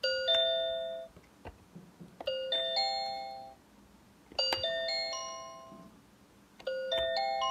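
Electronic bell chimes from a Fisher-Price Smart Stages toy train as its number buttons are pressed in turn: two rings, then three, then four, then five, each button ringing as many times as its number.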